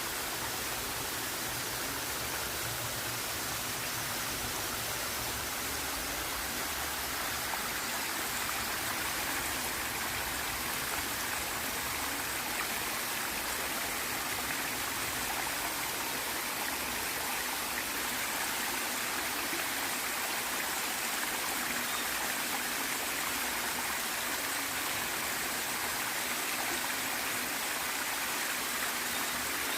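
Waterfall and its stream: a steady rush of falling and splashing water with a bright hiss and no breaks.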